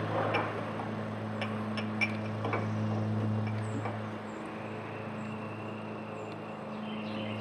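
Light clicks and clinks of a small measuring cup held against a motorcycle carburetor as the float-bowl drain is opened to let out old fuel, over a steady low hum.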